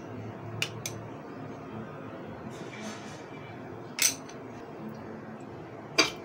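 A metal spoon clinking against a small glass bowl of beaten yogurt: two light clinks near the start, a sharper one about four seconds in, and the loudest as the glass bowl is set down on the table near the end, over a faint steady background hum.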